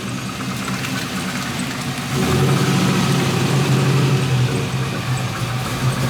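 LS1 5.7-litre V8 in a swapped BMW Z3 running at low speed, getting louder about two seconds in, with a little something off in its sound.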